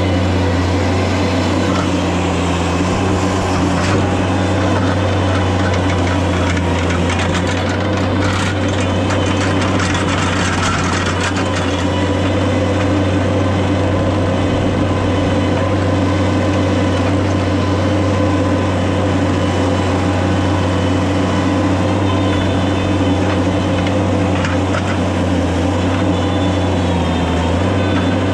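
An engine running steadily at a constant speed with a strong low hum, with some brief clattering about eight to eleven seconds in.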